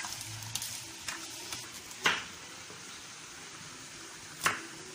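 Rice frying in oil in an enamel pot, stirred with a spoon: a steady sizzle with stirring scrapes. There is one sharp knock about two seconds in, and a knife chop on a wooden cutting board near the end.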